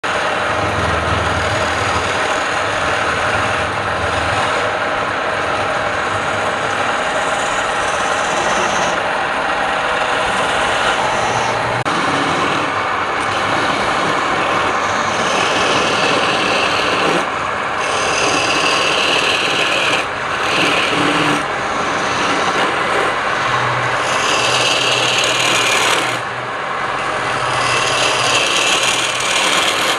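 A tool scraping and cutting wood on a running woodturning lathe: a continuous, loud rasping with the lathe's motor hum beneath it.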